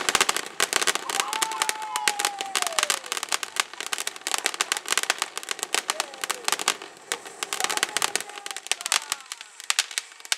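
Ground fountain firework spraying sparks with a dense, rapid crackling that thins out somewhat near the end. A few faint falling whistles sound over the crackle.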